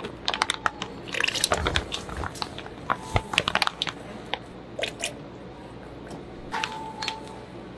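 Plastic bag crackling as it is handled, then thick, gloopy sauce squelching and dripping as it is poured out of the bag into a plastic container.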